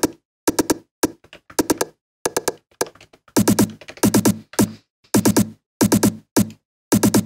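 Synthesized electronic percussion pattern generated live in TidalCycles: clusters of two to four short, sharp, pitched hits in a stuttering, uneven rhythm with silent gaps between them. About three and a half seconds in, the hits become longer and fuller.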